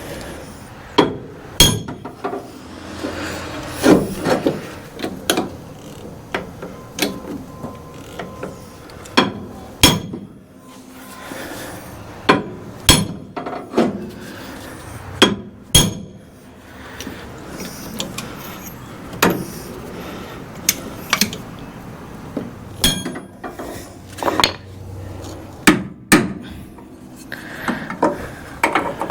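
A hammer striking the steel front frame rail of a 1966 Ford Ranchero: about twenty sharp blows, unevenly spaced and a second or two apart. The blows are working a curb-bent, rippled section of the frame back into line.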